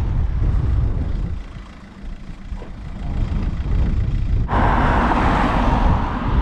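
Strong wind buffeting the microphone with a steady low rumble. The rumble eases briefly about two seconds in, and a louder rushing gust comes in about four and a half seconds in.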